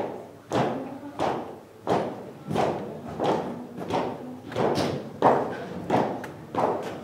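A steady, slow beat of thumps, about three every two seconds, each with a short echo.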